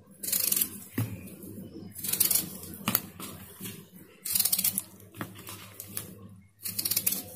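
A kitchen knife slicing through peeled raw potatoes: four crisp cuts about two seconds apart, with a few light knocks against a plastic bowl in between.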